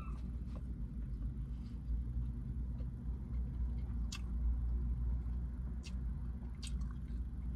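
Quiet eating sounds: a few sharp mouth clicks, about four seconds in and twice near the end, over a steady low hum.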